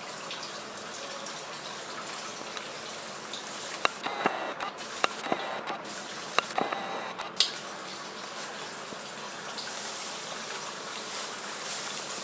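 Steady rushing background noise, with a run of sharp clicks and knocks from about four to seven seconds in.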